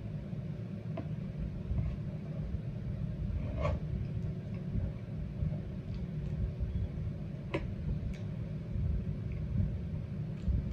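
Eating at a platter: a few short, light clicks and taps, four or five of them spread through, over a steady low rumble.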